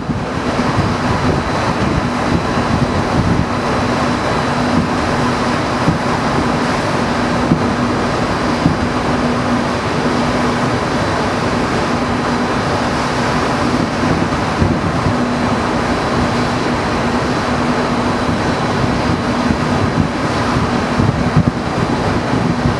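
A fireworks display heard from far off: a steady, dense rumble and crackle of shells and ground fountains running together, with only a couple of slightly louder pops, over a steady low hum.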